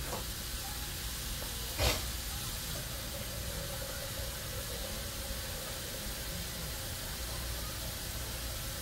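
Bell peppers and red onion sizzling steadily in olive oil in a frying pan on a gas burner, with one sharp clack about two seconds in as a spatula is set down on the counter.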